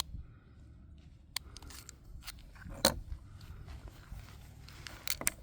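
A few faint, scattered metallic clicks and clacks of a Jimenez Arms JA22 .22 LR pistol being handled as a stoppage is cleared, the loudest about three seconds in and two quick ones near the end, over a low wind rumble.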